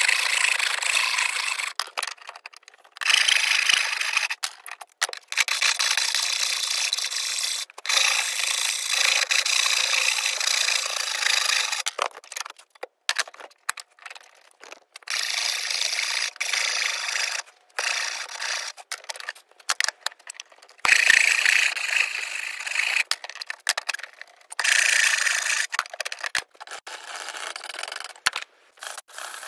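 Shinto saw rasp shaping a wooden axe handle: runs of rough rasping strokes, each a second or a few seconds long, broken by short pauses.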